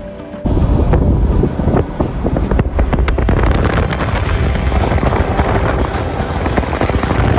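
Wind buffeting the microphone and running noise of a four-wheel drive driving along a sand beach, filmed out of the vehicle's window. It cuts in suddenly about half a second in and stays loud and rough, heaviest in the low end.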